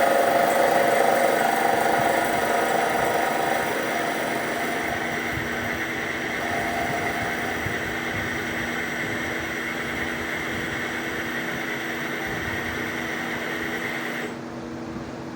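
CNC machine running with a steady mechanical hum and several held tones, slowly easing down in level over the first few seconds and dipping briefly near the end.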